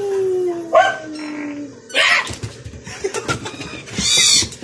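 A dog barking a few times and whining as it plays, with a long falling whine early on.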